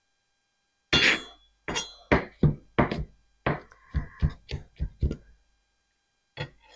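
Kitchen knife chopping garlic on a cutting board while mincing it: about a dozen sharp, uneven chops over four seconds, with one more near the end.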